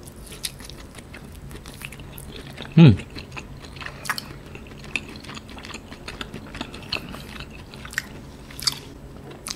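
Close-miked chewing of a soft, nearly raw slice of A5 wagyu beef: scattered small wet mouth clicks. About three seconds in comes one short vocal sound from the eater that falls in pitch.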